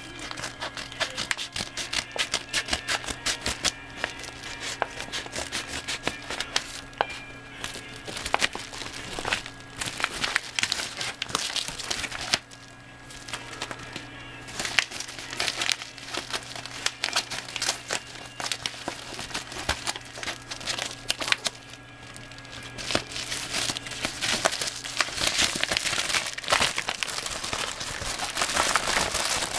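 Yellow paper mailing envelope crinkling and crackling as it is handled, in quick irregular runs over a faint steady hum.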